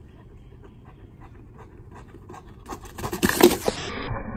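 A dog panting, about three breaths a second. Then a loud, noisy burst about three seconds in that cuts off abruptly.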